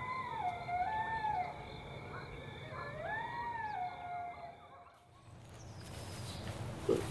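Coyote howling twice, each call rising, then falling away into a long level note, over a steady high trill that cuts off about five seconds in. A short sharp sound comes near the end.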